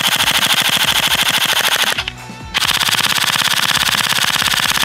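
Electric airsoft (AEP) pistols firing full-auto through a chronograph. First the stock pistol on a NiMH battery fires a steady stream of about 13 rounds a second, stopping about two seconds in. After a short pause the upgraded pistol, fitted with a MOSFET and a 7.4 V LiPo battery, fires a faster stream of about 17 rounds a second.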